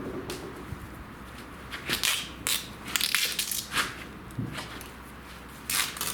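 Duct tape being pulled off the roll and wrapped around a horse's hoof: a series of short crackling rips, mostly in the middle, with one more near the end.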